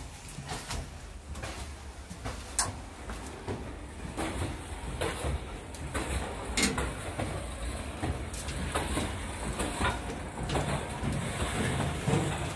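Irregular footsteps and knocks on the metal floor of a WAP-4 electric locomotive's machine-room corridor, over a steady low rumble.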